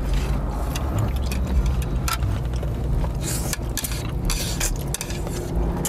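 Spicy instant noodles being slurped and chewed, with chopsticks clicking and scraping against the tray, over a steady low hum inside the car.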